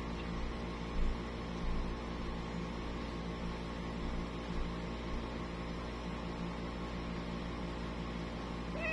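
Steady low hum with a faint hiss. Right at the very end a cat starts to meow.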